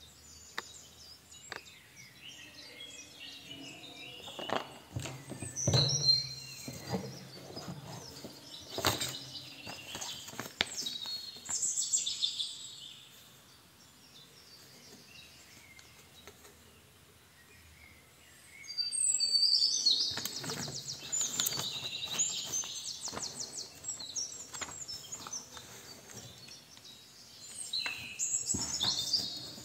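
Rustling and light knocks of a cardboard box, a plastic-cased pump and a paper instruction manual being handled, coming in uneven bouts with a lull in the middle. High bird chirps sound in the background.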